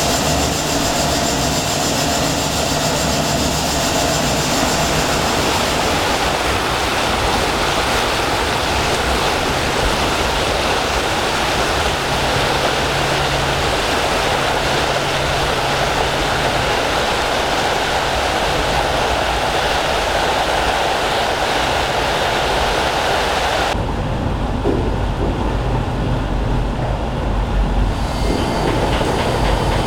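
Steady noise of the fire in a steamship's boiler furnace, with a faint held whine. About six seconds in it gives way to the even rushing and splashing of the ship's wake. Near the end there is a deep low rumble of machinery in the steering gear compartment.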